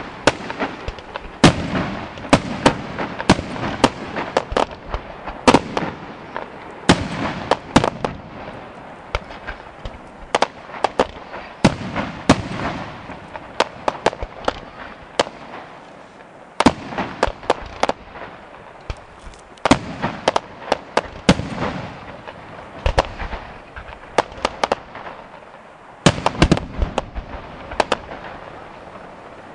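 Aerial fireworks display: an irregular string of sharp bangs from bursting shells, coming in quick clusters, with crackle and a low rumble between the reports.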